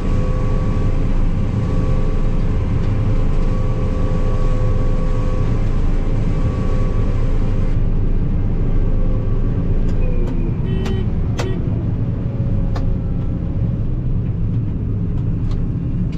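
Combine harvester running steadily with a constant drone and whine. Later, a tone falls in pitch and a few sharp clicks sound.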